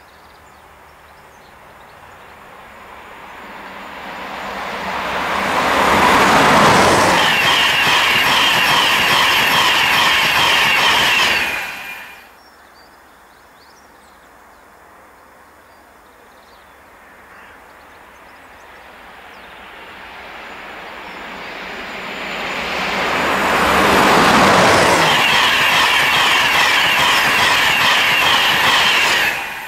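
Two Class 91-hauled InterCity 225 expresses passing at speed on an electrified main line, one after the other. Each begins as a rising rumble as it approaches and grows into a loud roar of wheels on rail. Each cuts off suddenly, the first about twelve seconds in and the second right at the end.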